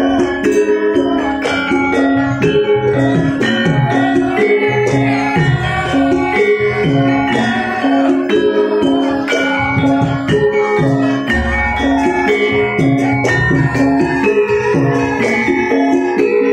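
Live Javanese gamelan music accompanying a dance: pitched metal percussion strikes repeated sustained notes in a steady pattern, with jingling percussion ticking along.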